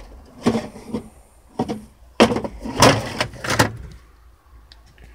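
Hard plastic clunks and knocks as a car's brake control power supply module is wrenched loose from its mounting by hand and lifted out. About six knocks over three and a half seconds, the loudest near the middle.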